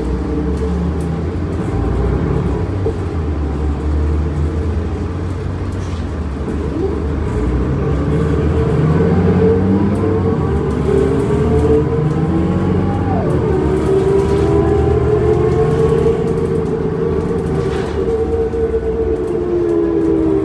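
Cummins ISL diesel engine and ZF Ecomat automatic transmission of a New Flyer D40LF transit bus, heard from inside the cabin while the bus is under way. The engine note rises in several sweeps as the bus accelerates and drops back between them as the transmission shifts up, and grows louder through the middle.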